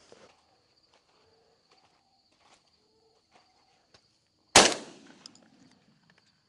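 A single shotgun shot about four and a half seconds in, its report trailing off over about a second.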